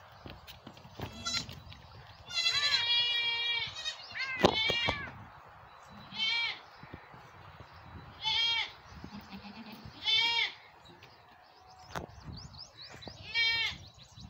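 Goat kids bleating, about seven high-pitched calls: a long wavering one about two seconds in, then shorter ones every couple of seconds.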